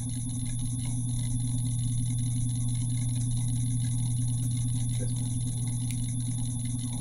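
Steady low electrical hum of two held tones, with a faint high whine above it.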